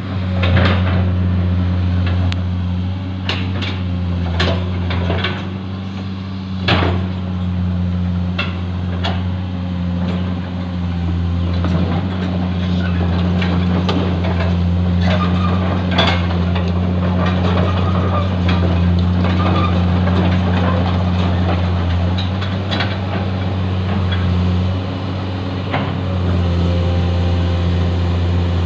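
Heavy diesel machinery running steadily at a worksite, an excavator and a concrete mixer truck at work, with repeated sharp metallic clanks and knocks over the engine drone.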